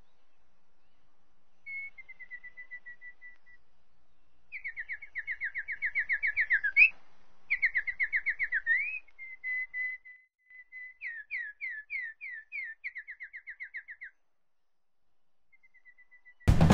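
A songbird singing several phrases of fast, repeated, high down-slurred notes, trilled and separated by short pauses. A softer run of notes opens it, the busiest trills come in the middle, and it goes quiet for about two seconds near the end.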